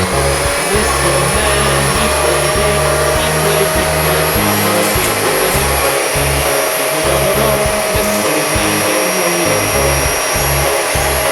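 Background music with a bass line, over a vacuum motor running steadily with a constant whine, as used in upholstery cleaning.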